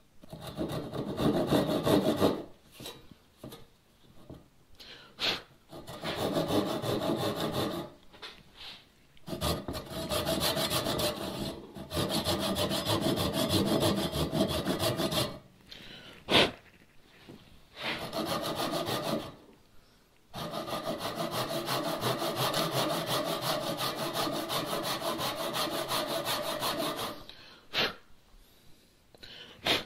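Japanese ryoba pull saw cross-cutting a pine bench leg: runs of quick rasping strokes, broken by several short pauses. A few sharp clicks fall in the pauses.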